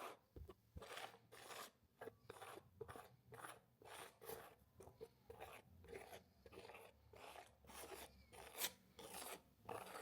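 Faint, scratchy strokes on canvas, repeated about twice a second, as a pencil or brush is drawn across the surface.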